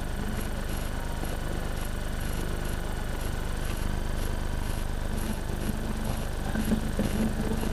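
A steady, even low machine hum, like a motor running continuously.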